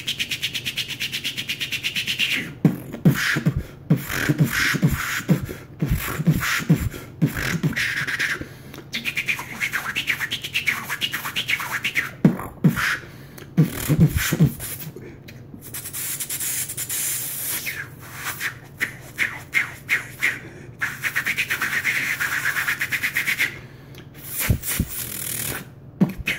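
A man beatboxing a club-style beat with his mouth: rapid, evenly repeating vocal drum hits, broken by stretches of sustained hissing, cymbal-like sound.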